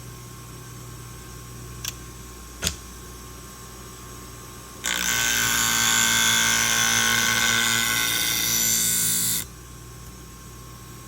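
Scissor blade ground on a 240-grit diamond wheel of a Wolff Twice As Sharp scissor sharpener: a harsh, hissing grind for about four and a half seconds starting about five seconds in, then cutting off. Before it the machine hums steadily and there are two short clicks.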